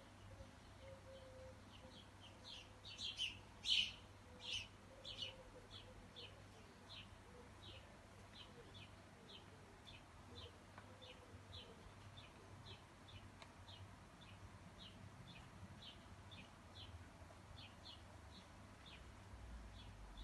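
Faint, short, high chirps repeating about twice a second, louder for a few seconds near the start.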